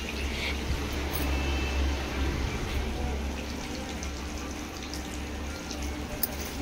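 Fish frying in hot oil in a kadai, a steady sizzle, over the low hum of a running fan, with a few faint clicks.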